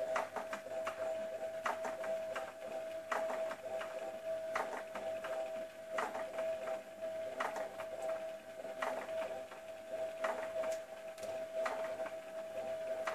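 Fisher-Price Ocean Wonders cradle swing's battery motor driving the seat: a steady whine, with a clicking knock about every second and a half as the seat swings.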